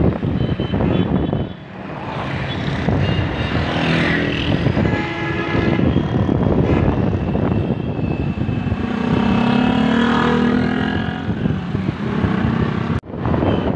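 Street traffic heard from a moving vehicle: a steady road rumble with the engines of passing cars, motorcycles and a van.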